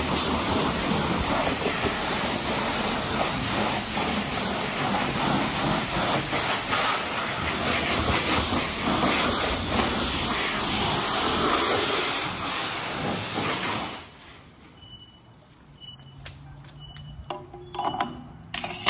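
Self-serve car wash pressure-washer wand spraying water onto a car, a steady loud hiss that cuts off about fourteen seconds in. After that, only faint clicks and a few short tones.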